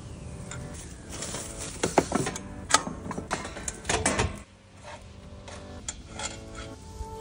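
Metal conduit and fittings being handled and fitted by hand: irregular light clicks and metallic clinks, the sharpest about two seconds in.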